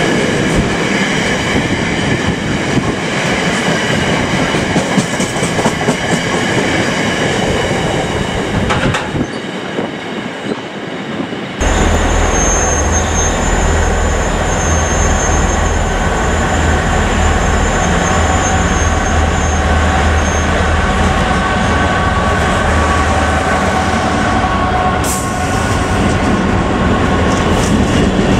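Freight trains passing: intermodal container wagons rumbling along the rails. About a third of the way in the sound changes to a locomotive approaching with a steady low drone and a high whine, and wagons pass again near the end.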